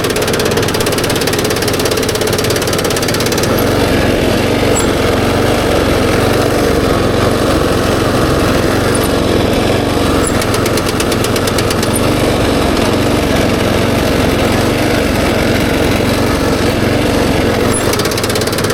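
Small engine of a Kubota SPJ400 rice transplanter running steadily.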